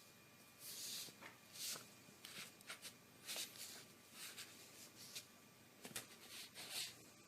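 Faint, irregular scratching and rustling noises: a series of short, dry scrapes with uneven gaps between them.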